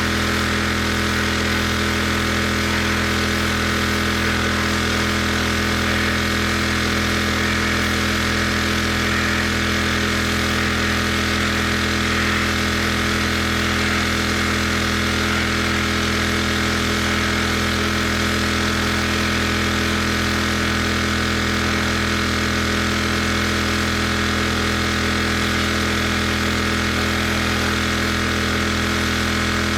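Pressure washer engine running steadily at one constant speed.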